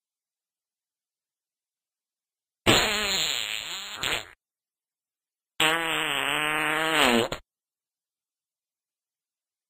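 Two long farts, each lasting under two seconds with a buzzing pitch; the first wavers in pitch, the second holds steadier.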